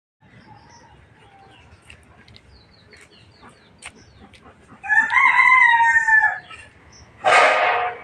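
A rooster crowing: one long call of about a second and a half, held fairly level and dropping away at its end, a little before the middle of the clip. Faint small-bird chirps run underneath, and a short harsh, noisy burst comes near the end.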